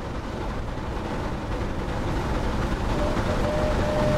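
Model Bulleid Pacific steam locomotive and its Pullman train running on the layout track, a steady rumble growing louder as it approaches. A steady tone comes in about three seconds in.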